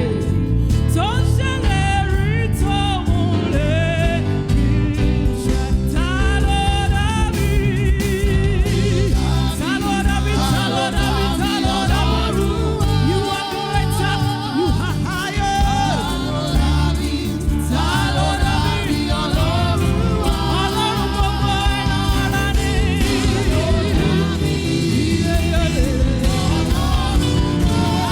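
Gospel praise music: voices singing with a choir over instrumental accompaniment.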